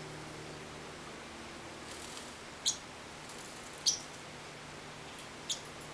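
Pacific parrotlet giving three short, high chirps, spaced a little over a second apart.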